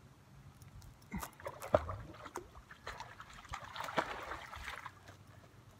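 Irregular splashing and sloshing of water from a hooked crevalle jack thrashing during the fight, with a sharp knock a little under two seconds in.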